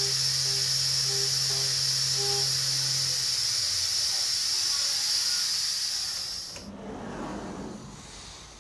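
CNC machine cutting wood with a compression router bit: a steady high hiss of spindle and cutting that stops abruptly about six and a half seconds in, leaving quieter shop noise.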